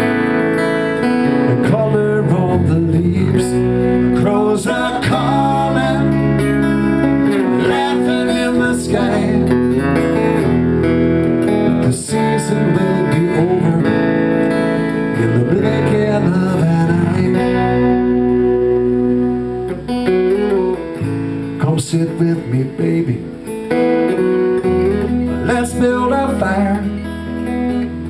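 Instrumental break of a live song: guitar playing over a four-string electric bass, with bass notes held under changing guitar notes.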